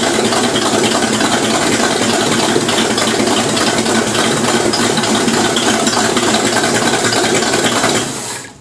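Supercharged 350 small-block Chevrolet V8, with a Weiand 142 blower and Holley 750 carburettor, running steadily at idle in a ski boat's engine bay; the sound drops away near the end.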